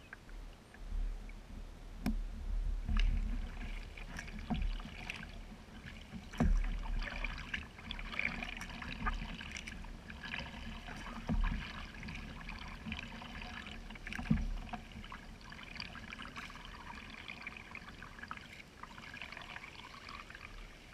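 Kayak paddling: paddle blades dipping, splashing and dripping in calm water, with a few sharp knocks spread through and a low rumble from wind on the microphone.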